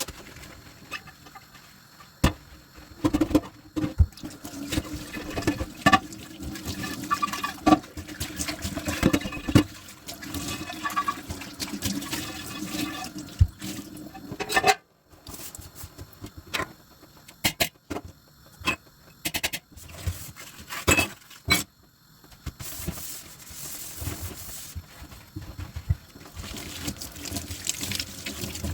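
Dishes being washed by hand in a kitchen sink: running water and rinsing, with frequent clinks and knocks of dishes against each other and the sink. A brief silent gap about halfway through.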